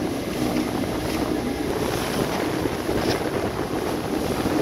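Wind buffeting the microphone over the steady rush of water along a sailing catamaran's hulls.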